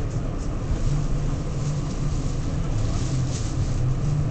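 Inside an R46 subway car: a steady low rumble with a low hum and some faint hissing swishes.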